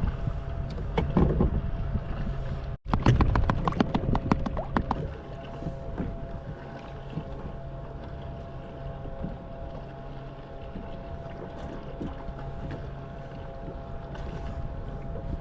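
Wind on the microphone and water around a kayak, with a run of rapid clicks and knocks in the first five seconds, then a steadier, quieter wash of wind and water.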